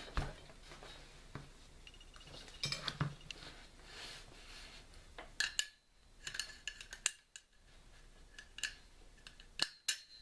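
Metal parts of a Mossberg 590 pump-action shotgun clicking and scraping as they are fitted into the receiver by hand during reassembly: a string of sharp, irregular clicks, some in quick clusters.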